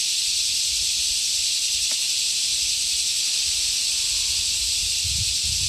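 Dense, steady high-pitched insect chorus, a continuous shrill hiss with no pauses, with a few low rumbles near the end.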